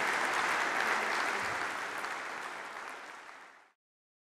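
Audience applauding, fading over the last couple of seconds and cutting off abruptly near the end.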